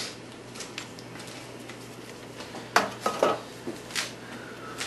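Sharp metallic clinks and knocks of tools against concrete, the loudest about three seconds in and a few more over the next second, while a concrete bar countertop is set onto the counters.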